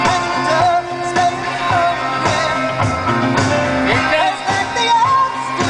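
Rock-and-roll style song playing, a singing voice over a steady beat.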